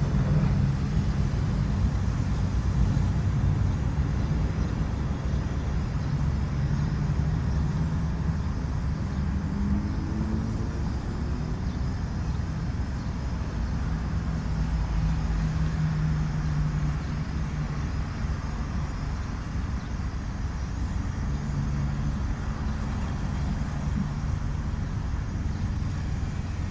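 Steady street-traffic rumble from passing motor vehicles; about ten seconds in, one engine's pitch rises as it speeds up.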